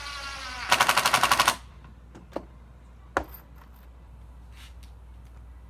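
Power screwdriver driving a screw into wood: the motor spins for under a second, then breaks into a rapid run of sharp hammering clicks, about ten a second, as the screw seats, and stops. Two single clicks follow.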